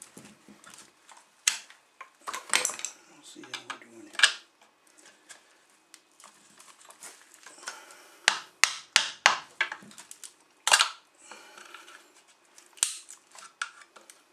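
Steel hammer striking a chisel to chip a glued-in PVC pipe out of an ABS fitting socket held in a vise: a series of sharp knocks, irregularly spaced, with a quick run of strikes about eight to ten seconds in.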